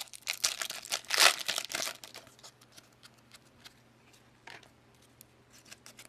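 A trading-card pack wrapper crinkling and tearing open, loudest about a second in, followed by a few faint clicks of cards being handled.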